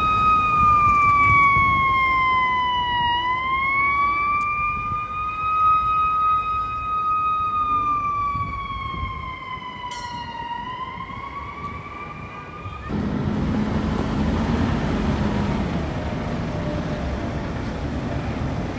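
Fire engine siren on a slow wail, its pitch falling and rising again about every seven seconds. It cuts off suddenly after about thirteen seconds, giving way to a fire truck's engine rumbling.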